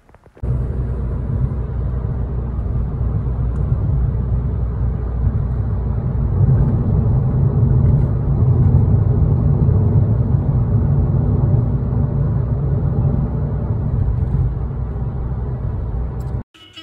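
Steady low rumble of a car driving along a road, heard from inside the cabin: engine and tyre noise. It starts suddenly about half a second in and cuts off just before the end.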